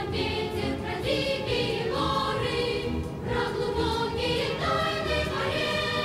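Music with a choir singing a melody in long held notes.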